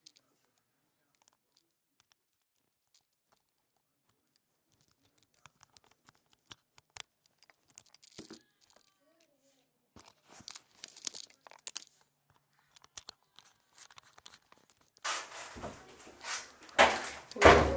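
Camera handling noise: faint scattered clicks and rustles as the camera is moved about, turning into louder rubbing and scraping against the microphone for the last few seconds.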